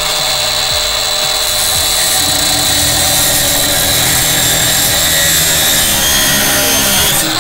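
DeWalt DCG460 cordless 230 mm angle grinder running at full speed and cutting metal: a steady high whine over a gritty hiss, easing off near the end.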